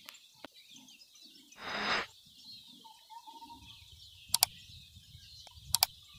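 Sound effects of an animated like-and-subscribe button: a short whoosh, then two crisp mouse clicks about a second and a half apart. Underneath is faint forest ambience with a thin bird call.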